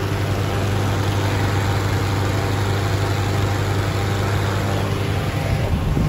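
Engine-driven hot air balloon inflation fan running steadily, a loud, even low drone as it blows air into the envelope.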